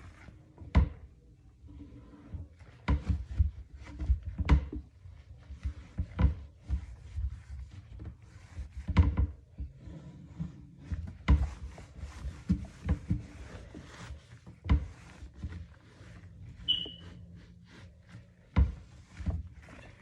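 Irregular wooden knocks and thunks, with rubbing between them, from kitchen cabinet doors being handled and wiped down.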